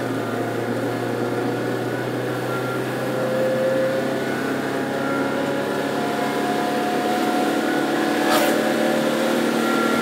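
Car engine running steadily as heard from inside the cabin, pulling the car up a steep hill road, with tyre and road noise. A single short knock about eight seconds in.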